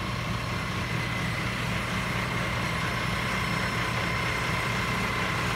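A heavy engine running steadily at idle, with a thin steady whine above its low rumble.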